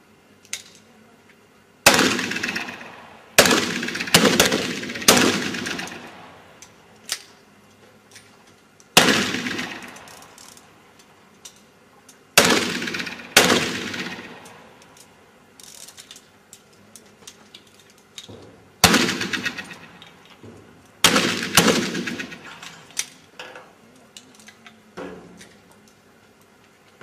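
Black powder pistols firing at uneven intervals from several shooters, about a dozen shots, some in quick pairs, each with a long fading echo.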